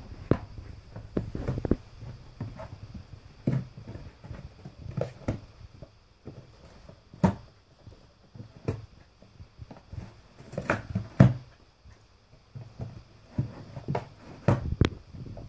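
Golden retriever tearing at an empty cardboard Kleenex tissue box with its mouth and paws: irregular crinkling, ripping and knocks of the box, with sharp cracks loudest about seven seconds in and again about eleven seconds in.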